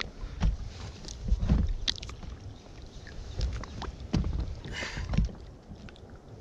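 Water slapping and lapping against a small inflatable boat's hull, with an uneven low wind rumble on the microphone and a few light knocks. There are short splashy bursts about five seconds in.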